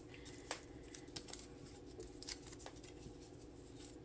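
Faint, scattered light clicks and taps as punched paper circles are picked out of a clear plastic tray, over a low steady hum.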